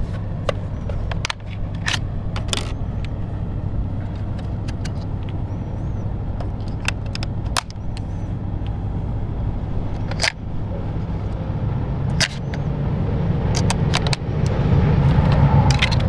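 Steady low engine rumble of farm traffic on the road, swelling louder near the end as a truck approaches. Scattered sharp clicks from small plastic parts being handled.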